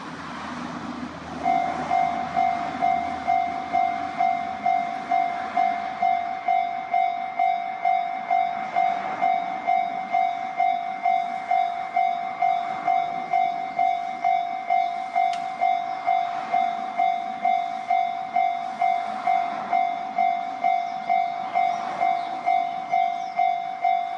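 Japanese railway level crossing's electronic warning bell starts ringing about a second and a half in. It is a steady, evenly repeated single-pitched tone at about two strikes a second, signalling an approaching train.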